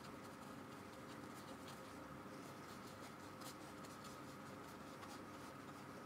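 Faint, irregular scratching of a paintbrush dabbing and dragging gouache across paper, over a low steady hum.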